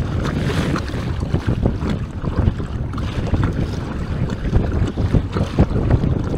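Wind buffeting the microphone over choppy water, with small waves slapping and splashing irregularly against a moving kayak's hull.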